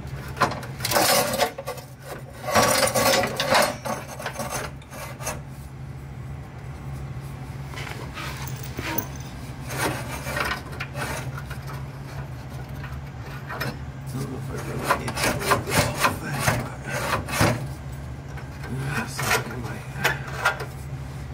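Irregular metal scraping, rubbing and knocking as hands work the stock exhaust muffler of a Porsche 993 911 free at its pipe joint, in clusters with pauses between, over a steady low hum.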